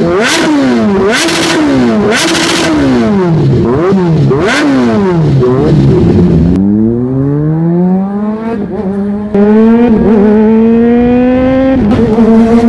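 2021 Kawasaki Z H2's supercharged inline-four through a GP Moto slip-on exhaust, revved sharply and let fall back about five times in six seconds while standing still. The bike is then ridden, and the engine note climbs slowly and steadily under acceleration before levelling off.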